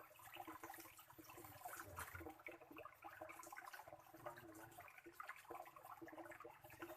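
Near silence: a faint background with many small, scattered ticks and crackles.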